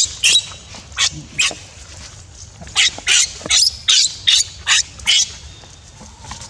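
A baby monkey's shrill distress screams: a few short cries, a brief pause, then a quick run of about eight more, ending about five seconds in, while its mother grips it close.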